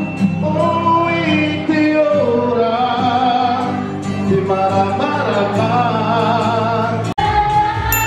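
A song with a singer's voice over accompaniment, the held notes sung with vibrato; the sound drops out briefly about seven seconds in.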